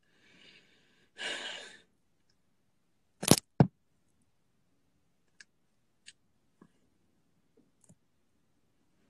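A man breathing out heavily, once, then two sharp clicks or knocks about a third of a second apart, followed by a few faint ticks.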